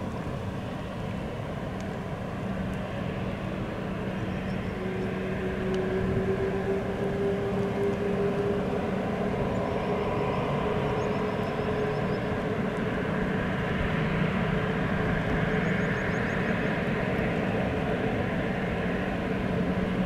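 Embraer ERJ-195's GE CF34 turbofan engines running, a steady hum with a whine that rises slowly in pitch as the sound grows louder from about five seconds in.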